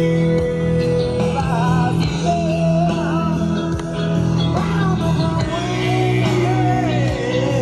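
A rock song playing, with a singer over steady bass notes.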